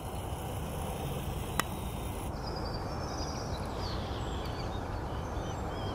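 Open-country ambience: steady low wind noise on the microphone, with faint bird chirps in the second half and a single sharp click about a second and a half in.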